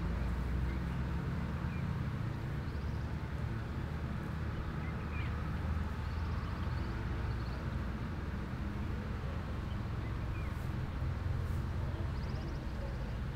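Steady low outdoor background rumble, with a few faint short chirps scattered through it.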